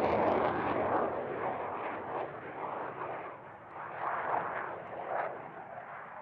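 F-16 fighter jet's Pratt & Whitney F100 turbofan in flight, a loud ragged rumble with uneven pulses that fades as the jet moves away.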